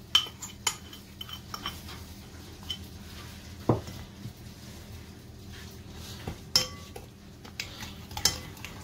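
Wire whisk clinking and scraping against a glass mixing bowl as powdered sugar is stirred into milk and curd, with scattered light clinks and a few sharper knocks.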